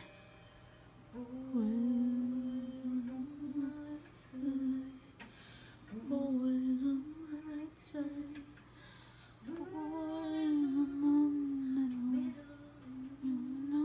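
A woman singing a slow melody live, in long held notes that bend slightly, phrase by phrase with short breaths between.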